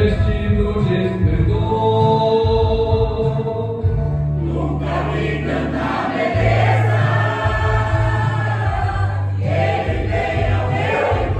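Church choir rehearsing a gospel song, voices singing together over an accompaniment of long held bass notes.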